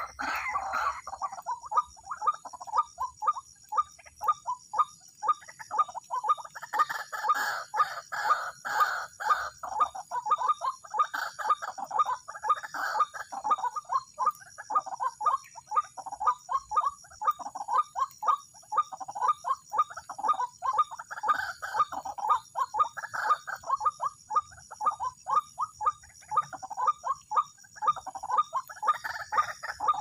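White-breasted waterhen calling: a long unbroken run of short repeated notes, about three to four a second.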